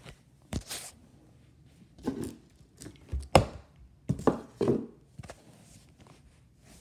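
A string of irregular knocks and clatters, about six, as puzzle pieces are picked up and set down on a wooden surface, with the loudest knock a little past the middle.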